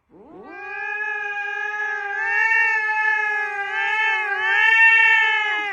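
A cat's single long, drawn-out yowl: it slides up in pitch at the start, then holds one wavering note for over five seconds before breaking off at the end.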